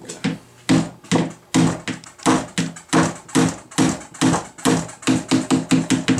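A claw hammer striking the bent, split roof overhang of a bat house to knock it back into place. A run of about sixteen sharp knocks, each with a brief ringing tone, about two a second at first and quickening to three or four a second near the end.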